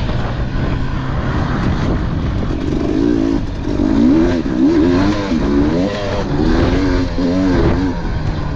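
KTM dirt bike engine, heard from the rider's own bike, revving hard and easing off again and again as the rider throttles through the turns. The pitch climbs in short repeated sweeps.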